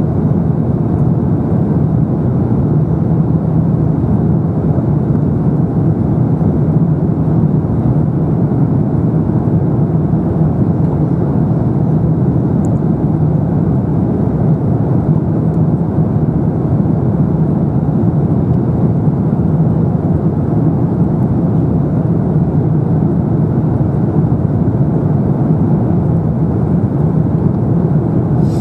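Steady cabin noise inside an Airbus A350-900 in flight: a constant rush of airflow with a low, even hum from its Rolls-Royce Trent XWB engines.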